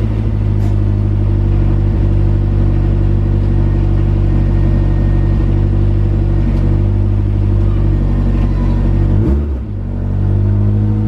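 Car engine running steadily with a low, even note; about nine seconds in its pitch briefly dips and then comes back.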